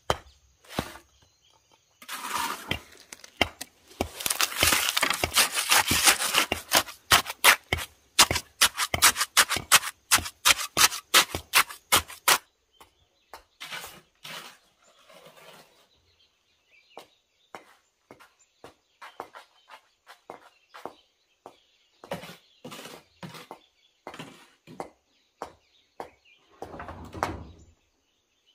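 Hand tools striking at work: a fast run of sharp, loud knocks for several seconds, then scattered lighter knocks.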